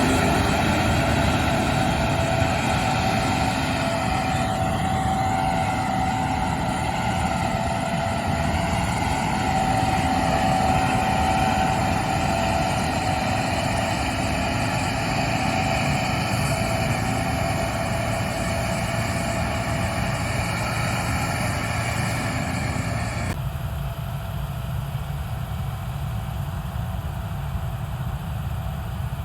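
Gleaner combine running steadily while harvesting wheat, with a steady whine over the low engine noise. About 23 seconds in, the higher-pitched part cuts off suddenly and mostly the low engine sound is left.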